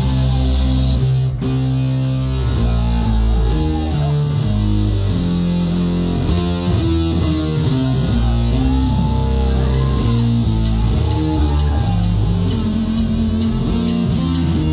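Live synth-rock band music: a heavy, sustained bass line under a keytar lead that bends up and down in pitch. Regular drum and cymbal hits come in about two-thirds of the way through.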